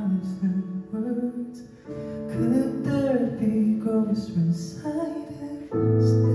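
A male singer singing live into a microphone over keyboard accompaniment, heard through the venue's PA. A held chord comes in sharply near the end.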